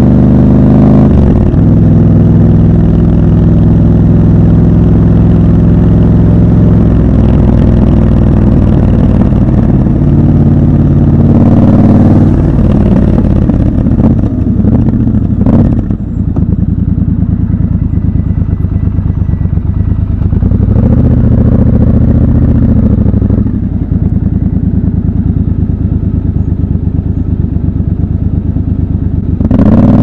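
Triumph Scrambler 1200 XC's 1200 cc parallel-twin engine heard from the rider's seat: it runs steadily in gear, drops off as the bike slows about halfway, idles lumpily with distinct firing pulses while stopped, and picks up again to pull away at the very end.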